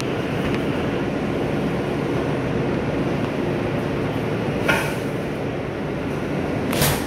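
Steady rumble of an R143 subway car running, heard from inside the car, with two short, sharp noises, one about four and a half seconds in and a louder one near seven seconds.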